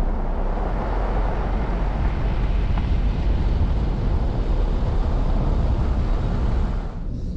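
A car driving along a road: a steady rush of wind and tyre noise over a low rumble, easing off slightly near the end.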